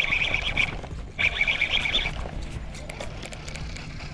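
Frog calling in short, pulsed trills, two of them about half a second apart, each under a second long.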